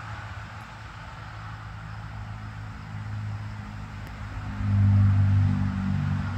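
A car engine running close by with a low, even hum that grows louder from about halfway in and is loudest about five seconds in, over faint outdoor hiss.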